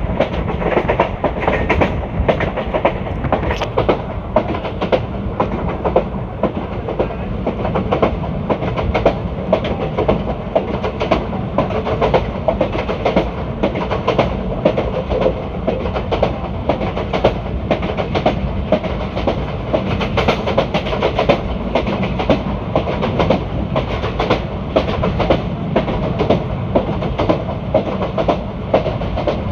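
ICF passenger coach running at speed on the track: a steady rumble of wheels on rail, with frequent clickety-clack beats as the wheels cross rail joints.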